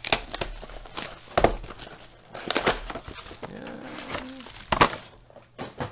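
Cardboard trading-card box being handled and opened by hand: a handful of sharp crackles and taps, spread about a second apart, as the box and its flaps are pulled open.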